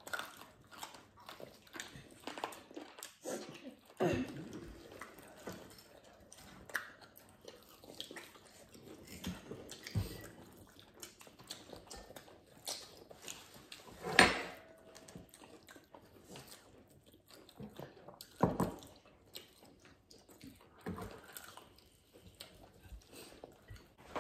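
People chewing and biting into crispy breaded fried chicken and grilled ribs: scattered crunches and small clicks. A sharp knock about fourteen seconds in is the loudest sound.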